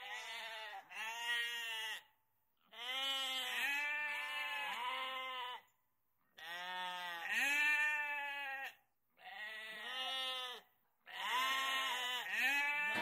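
Sheep bleating over and over, in runs of two or three bleats broken by short silences.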